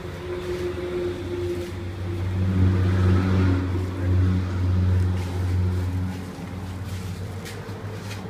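A motor engine running with a low, steady hum that grows louder about two seconds in and eases off again around six seconds.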